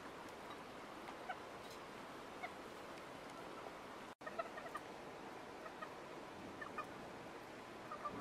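Chickens clucking in short, scattered notes over a steady faint hiss; the clucks come thicker after a brief break about four seconds in.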